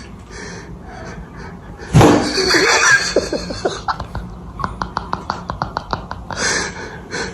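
A sudden loud outburst about two seconds in, followed by a person laughing in a quick run of short rhythmic bursts.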